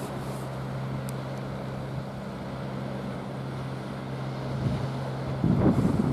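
Steady low engine hum, as from a distant boat motor, over wind and sea noise on the microphone. A louder rush of wind noise comes near the end.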